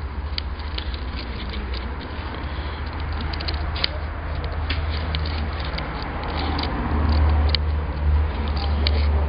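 Microphone rumble and handling noise from a camera carried on foot outdoors: a steady low rumble that grows louder toward the end, with scattered light clicks and crackles.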